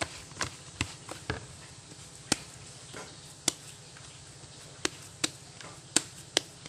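Pastry dough being kneaded by hand in a plastic mixing bowl: about ten sharp taps and knocks at irregular intervals as the dough and bowl are worked, over a low steady hum.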